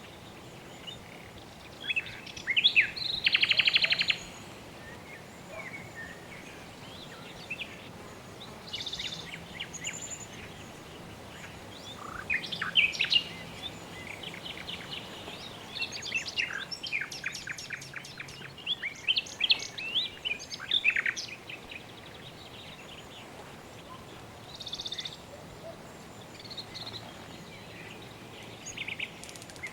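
Several birds chirping and trilling in short scattered phrases, including a fast buzzy trill a few seconds in and a busier stretch of calls in the middle, over a steady soft background hiss.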